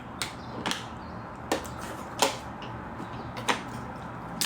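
About five sharp, separate taps or clicks at irregular intervals over a faint steady low hum.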